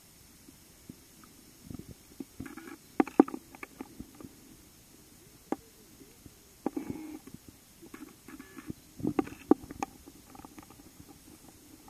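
Underwater sound picked up by a submerged camera: scattered sharp clicks and knocks with short muffled low gurgles, loudest about three seconds in and again around nine seconds.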